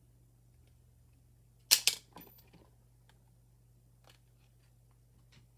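Two sharp plastic snaps in quick succession as a screwdriver pops a knockout tab out of a plastic alarm device housing, followed by a few light clicks of handling.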